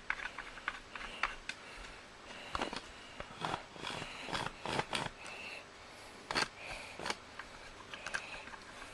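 A cardboard parcel being handled and opened by hand: irregular clicks and knocks with short scraping and rustling strokes, the sharpest knocks clustered in the middle of the stretch.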